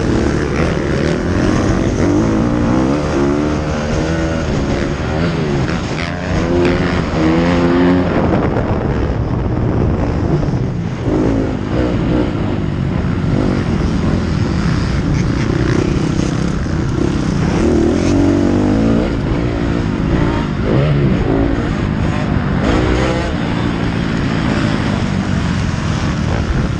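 Motocross bike engine revving hard at close range, its pitch climbing and dropping again and again as the throttle is worked through corners and gear changes, heard through a helmet-mounted camera.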